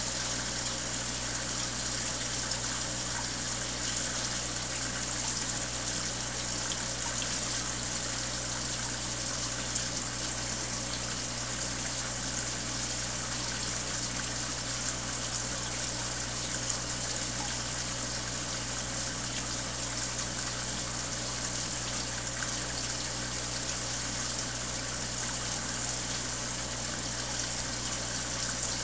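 Aquarium water pump running steadily: a constant low hum under an even hiss of moving water.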